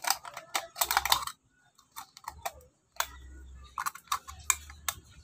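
Thin aluminium soda can crinkling and clicking as it is squeezed and its cut pieces are pressed together by hand: irregular clusters of sharp crackles, the busiest near the start and again about four seconds in.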